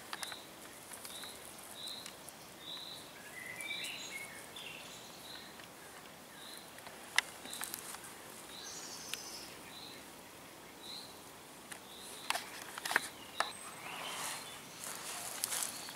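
Outdoor woodland ambience: a bird repeats a short high call about once a second, with a few other bird chirps around it. Now and then there are sharp rustles and crackles of dry grass and twigs, more of them near the end.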